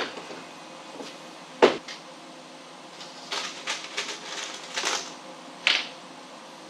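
A series of sharp knocks and clatters from parts being handled and set down on a workbench: one near the start, the loudest about a second and a half in, a quick run of lighter clatters past the halfway mark and one more knock near the end, over a steady low shop hum.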